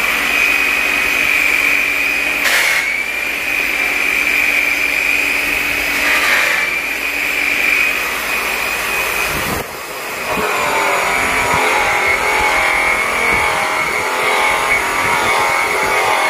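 Power buffer spinning an airway buffing wheel against an aluminum valve cover: a steady high whine that dips briefly about ten seconds in.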